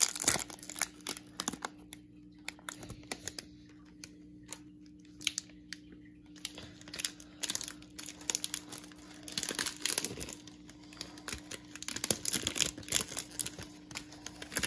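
Foil trading-card pack wrapper crinkling and cards being handled, in scattered bursts of crackles and light clicks, sparse for a few seconds and busier in the second half. A faint steady low hum runs underneath.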